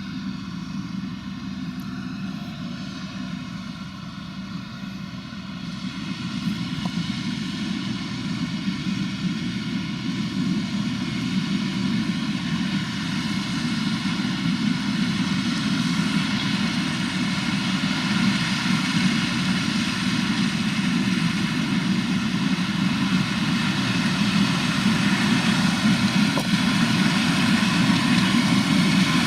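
Diesel engine of a large farm machine running steadily, growing louder throughout as the machine comes closer.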